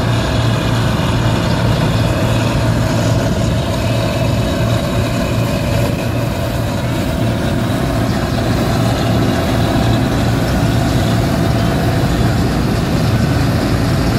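Ford tractor's diesel engine running steadily under load as it tows a silage trailer at a slow pace.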